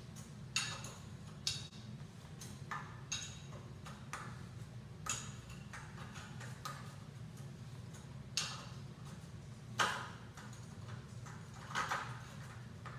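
Shimano bottom bracket tool turning the threaded lower steer tube piece out of a Lefty fork: irregular sharp metallic clicks and taps, about ten of them, over a steady low hum.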